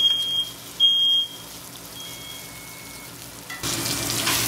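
Smoke alarm beeping, set off by smoke from a ribeye searing in a hot pan. There are loud high beeps about a second apart, then a fainter one, over the quiet sizzle of the pan. About three and a half seconds in, a louder steady hissing rush begins.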